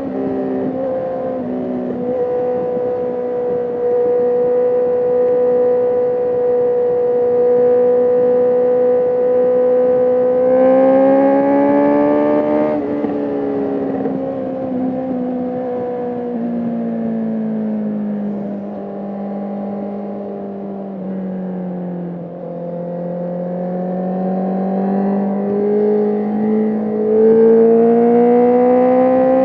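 Sport motorcycle engine running under way. It holds a steady speed for about ten seconds, revs up, drops sharply as it shifts up a gear, slowly winds down in pitch as the bike slows, then climbs again under acceleration near the end.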